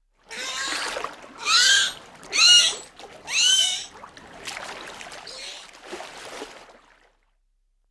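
Dolphin cries over the wash of a wave: three loud squeals about a second apart, each rising then falling in pitch, then fainter calls as the water noise dies away.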